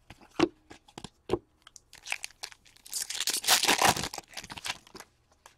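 Trading cards clicking and sliding against each other, then a foil card-pack wrapper crinkling for about two seconds as it is handled.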